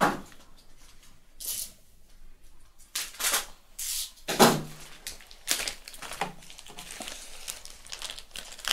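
Plastic packaging crinkling and being torn open in irregular bursts.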